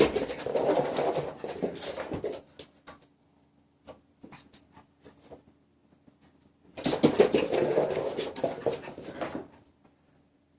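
A Maltese dog making snuffling, whimpering noises in two bouts, each lasting two to three seconds, with small clicks in between.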